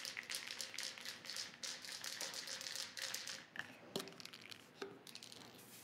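Aerosol paint can being shaken, its mixing ball rattling in quick faint clicks for about three seconds, followed by a few separate light taps.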